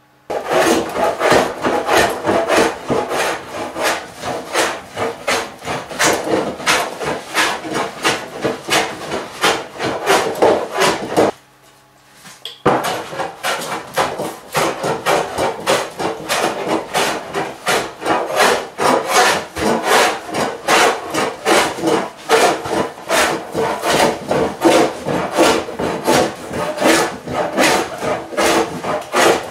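A No. 6 bench plane shaving a rough, cupped timber slab in quick strokes, a few a second, with a short break a little before the middle; it is taking down the high centre of the board to flatten it.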